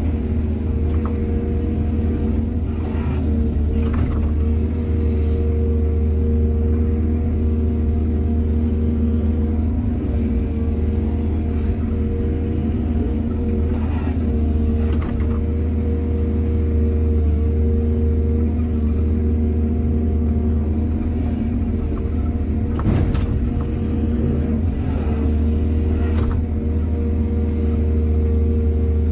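Excavator's diesel engine running steadily at a constant pitch, with a few short knocks and clanks at scattered moments.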